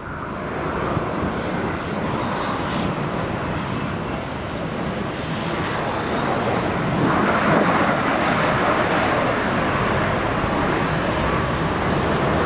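Twin-engine business jet on the runway: a steady jet-engine roar that gets louder about seven seconds in.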